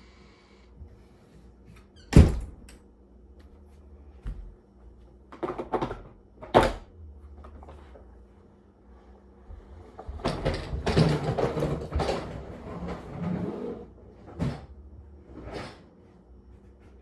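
A few sharp knocks and thuds, the loudest about two seconds in, typical of a door being shut and things being handled, then a few seconds of rough scraping and rustling with more light knocks near the end.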